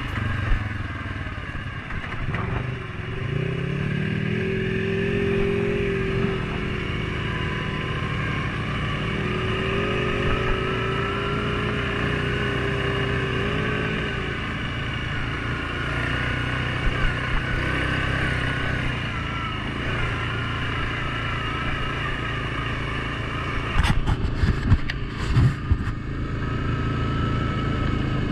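Suzuki KingQuad 750 ATV engine running, its pitch rising and falling with the throttle, with a few sharp knocks near the end.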